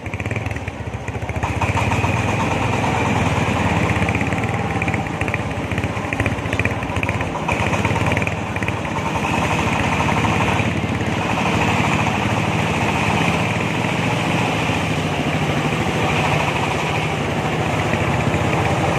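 Engine-driven corn sheller machine running steadily, with a dense rattling over the engine hum; it gets louder about a second and a half in.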